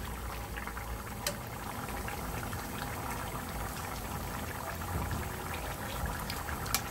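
Thick curry sauce with chicken and potatoes bubbling steadily at a simmer in a frying pan, with a couple of faint clicks.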